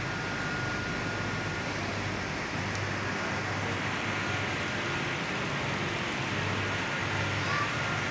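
Steady rushing background noise, even and unbroken, with a faint high steady tone running through it.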